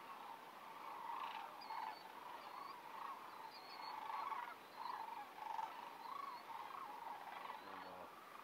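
A large flock of sandhill cranes calling, many overlapping rolling calls blending into a constant, faint chorus that swells and ebbs.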